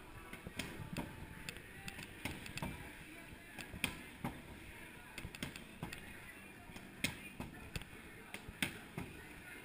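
Boxing gloves punching a freestanding heavy bag in left jab, right cross combinations. Repeated thuds come a few a second, often in quick pairs.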